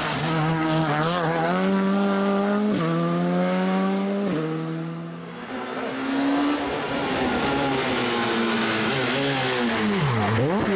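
Skoda Fabia R5 rally car's turbocharged four-cylinder accelerating hard with two quick upshifts, then fading away. A second rally car, a Peugeot 207, then comes in, and near the end its revs drop sharply and rise again as it brakes and downshifts into the corner.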